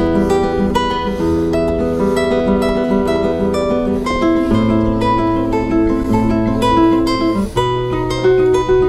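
Classical guitar played fingerstyle: picked melody and arpeggio notes over a bass line, which moves to a new chord about four and a half seconds in and again about seven and a half seconds in.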